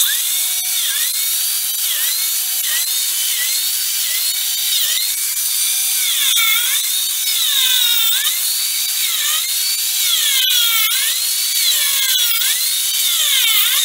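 Electric biscuit (plate) joiner running continuously while cutting slots for #20 biscuits in the edge of ash boards. Its high whine dips in pitch and recovers roughly once a second, over and over.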